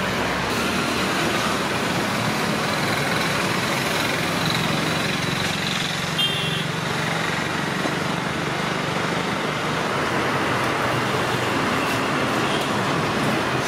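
Steady roadside traffic noise: a continuous, even rush of passing vehicles with no single event standing out.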